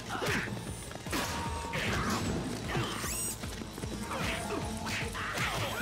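Cartoon fight sound effects: a quick run of whooshes and punch impacts.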